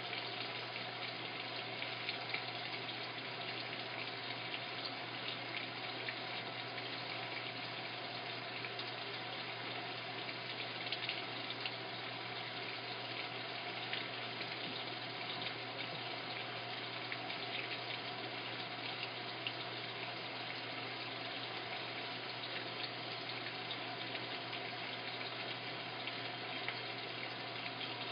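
Washing machine filling with water: a steady rush of water flowing into the drum, with a constant low hum underneath.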